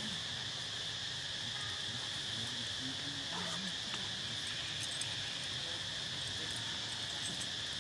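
Steady insect chorus in forest, an unbroken high-pitched drone, with a few faint low sounds and light ticks beneath it.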